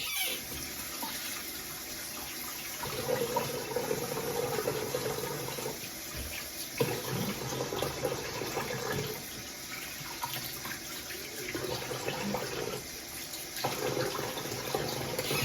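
Water running from a tap into a sink, the splashing rising and falling in strength; it cuts off abruptly at the end.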